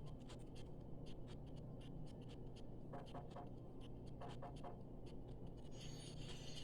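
Close-up eating sounds: a run of small, irregular crisp clicks and crunches from chewing food, over a steady low hum.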